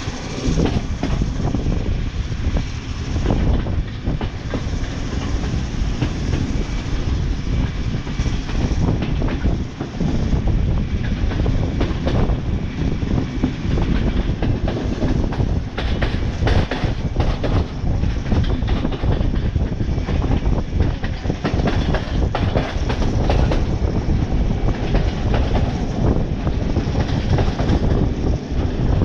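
Passenger train running at speed: a steady rumble of the carriage with the wheels clattering over rail joints, heard from inside the carriage.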